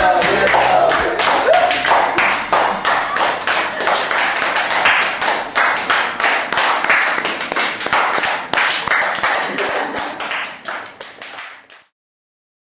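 A group of people clapping their hands in fast, uneven claps. The clapping fades away over the last few seconds and stops shortly before the end.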